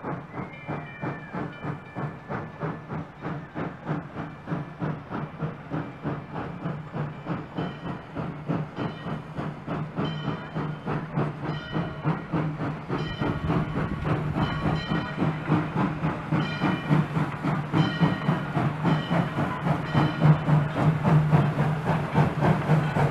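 Steam locomotive drawing near at low speed, its exhaust chuffing in a steady, even beat that grows louder as it approaches.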